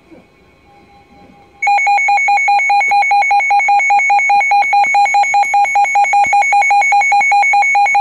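Midland WR-100 weather alert radio sounding its alarm: a loud, rapidly pulsing electronic beep that starts about a second and a half in, signalling a received severe thunderstorm warning.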